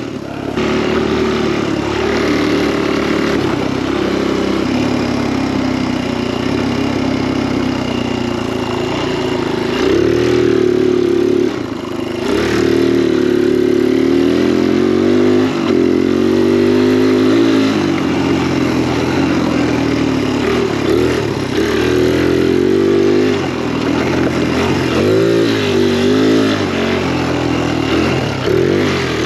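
Kawasaki KLX dirt bike's four-stroke single-cylinder engine running under way, its revs rising and falling as the throttle opens and closes, with a brief drop in level about twelve seconds in.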